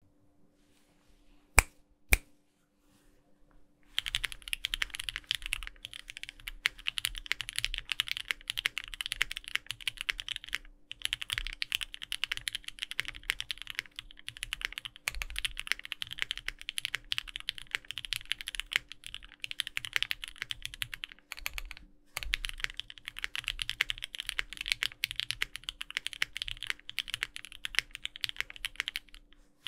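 Typing on a Bakeneko60 mechanical keyboard with lubed Thic Thock Marshmallow linear switches, an aluminum plate, GMK keycaps and no foam: a rapid, steady stream of key presses that starts about four seconds in and pauses briefly twice. Two sharp, louder clicks come about two seconds in, before the typing begins.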